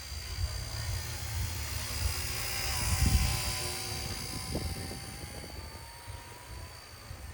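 RC Era C032 UH-1 Huey scale RC helicopter flying, its motor and rotor whine growing louder to a peak about three seconds in and then fading.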